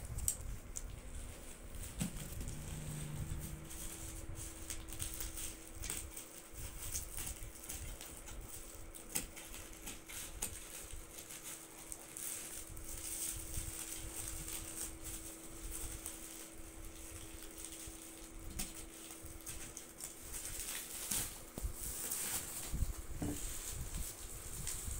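A plastic-wrapped cardboard parcel being cut open and unwrapped by hand: scattered crackles, scrapes and clicks of plastic wrap, packing tape and scissors.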